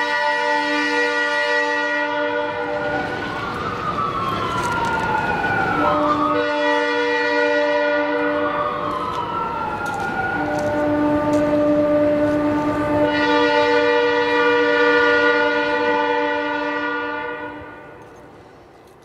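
An air-horn chord sounding in long held blasts with short breaks, over a siren whose wail rises and falls slowly. Both fade out near the end.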